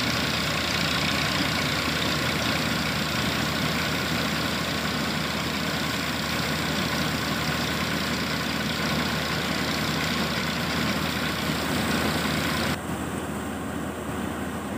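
Surjeet paddy thresher at work, powered by a Massey Ferguson 1035 DI diesel tractor: a steady engine drone under the loud, even rush of the threshing drum and fan blowing out straw and chaff. Near the end the sound abruptly turns duller and quieter.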